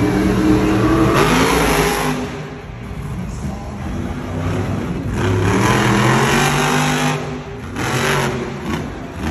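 Grave Digger monster truck's supercharged V8 revving hard in surges. The engine note holds loud for the first couple of seconds, eases off, then climbs in pitch on a hard throttle run about two-thirds of the way through and surges again near the end as the truck goes up on two wheels.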